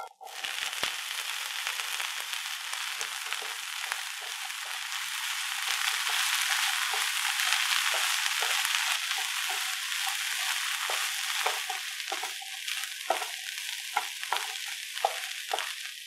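Sliced baby corn hitting hot oil in a nonstick pan and sizzling as it fries, the hiss starting suddenly as the pieces go in. A wooden spatula stirs and knocks the pieces around, its taps more frequent near the end.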